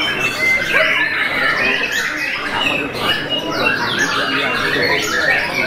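Many caged white-rumped shamas (murai batu) singing at once in competition, a dense overlapping chorus of rising and falling whistles and chattering phrases with no break.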